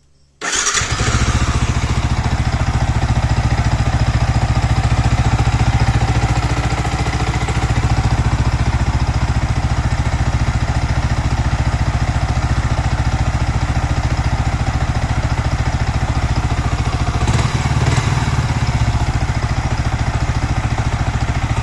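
Yamaha R15 V3 motorcycle's single-cylinder engine starting up about half a second in and running steadily at idle, carrying the noise that is blamed on a worn clutch housing.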